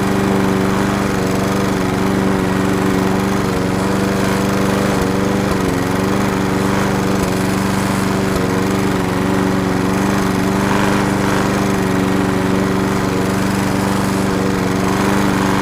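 Lawn mower's small engine running steadily at a constant speed.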